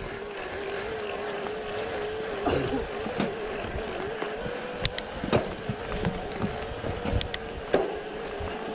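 Specialized Turbo Levo e-mountain bike's mid-drive motor whining steadily under pedal assist, its pitch wavering slightly with cadence, over the rattle of the bike on rough dirt singletrack with several sharp knocks from bumps and roots.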